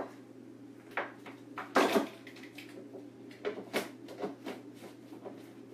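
Kitchen handling clatter: a blender jar and a glass bowl of cooked beets being moved and knocked about on a wooden worktable, as a series of separate knocks and clinks, the loudest about two seconds in.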